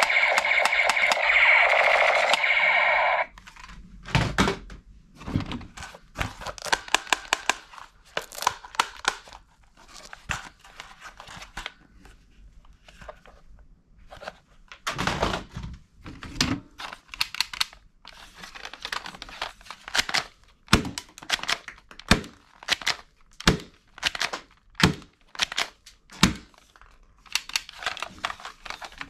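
An electronic toy gun's firing sound effect plays loudly, then cuts off suddenly about three seconds in. After that, hard plastic toy guns clack and knock as they are picked up and shuffled in a cardboard box.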